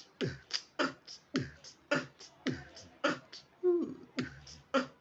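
Beatboxing: a vocal drum-machine pattern of kick, snare and hi-hat sounds in a steady beat, about four strokes a second, imitating a keyboard's percussion sequence. A short low pitched glide sounds near the end.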